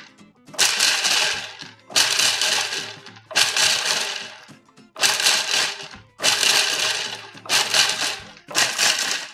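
Food processor pulsed in short bursts, about seven in a row, each roughly a second long and starting sharply before tapering off, chopping whole almonds.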